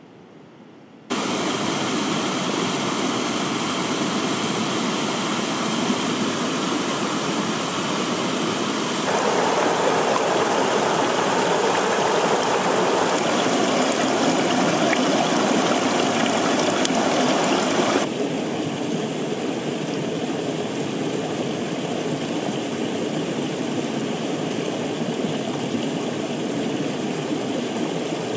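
Small rocky mountain stream rushing and splashing over boulders in little cascades. The steady rush starts about a second in, grows louder about a third of the way through, and turns thinner and quieter about two thirds through.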